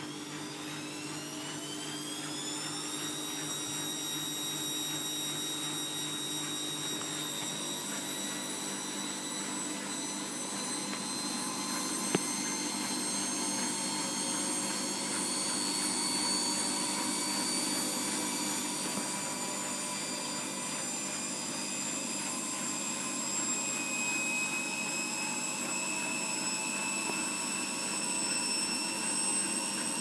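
Bosch WFF2000 washing machine spinning up for the interim spin after the second rinse. The motor's whine rises steeply over the first few seconds as the drum gathers speed, then holds high and creeps slowly upward. A single sharp click about twelve seconds in.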